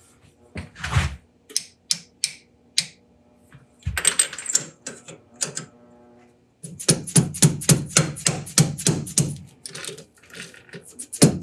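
Clicks and metal handling at a lathe's 5C collet chuck, then, from about six and a half seconds in, a quick run of light taps at about five a second from a soft-faced mallet seating the workpiece in a square collet.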